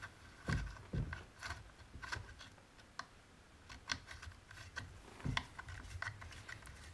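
Quiet, scattered small clicks and taps of hands fitting the spring-loaded idle screw into a Husqvarna 266/268 chainsaw, with a few louder knocks about half a second, one second and five seconds in.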